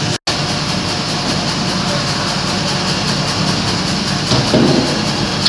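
Serra ME 110 sawmill machinery running with a steady mechanical rattle as a frozen log sits on the chain log deck. The sound drops out for an instant just after the start.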